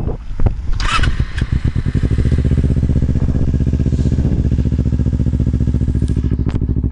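Kawasaki Ninja 250R's parallel-twin engine through a Blueflame aftermarket twin exhaust with the baffles taken out. It runs unevenly at first, with a brief sharp noise about a second in, then settles into a steady idle.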